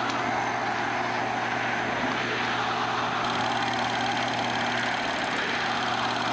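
Film projector running steadily: a continuous mechanical noise with a low steady hum.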